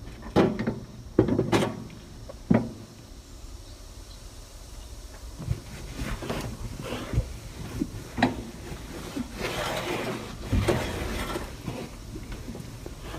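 A truck windshield being cleaned by hand: a few sharp knocks and clunks near the start, then several swishing wipes across the glass.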